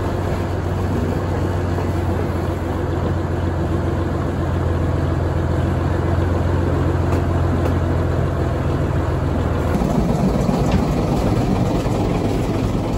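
Fowler diesel shunting locomotive's engine running, heard from its footplate. The engine note changes about ten seconds in as the locomotive gets under way along the track.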